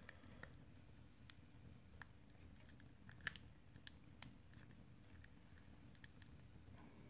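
Near-silent room hum with faint, scattered clicks and ticks as steel tweezers pry at the edge of a Huawei Mate 20 Lite's heated, cracked screen glass. The loudest click comes a little over three seconds in.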